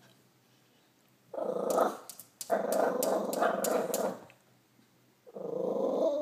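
Small dog growling at a squirrel it is watching: three rough growls, the middle one the longest, the last still going at the end.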